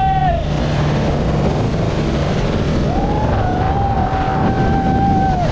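Motorboat running at speed with a steady engine rumble and water rushing and splashing past the hull. About three seconds in, a long held high tone begins and ends in a falling slide near the end.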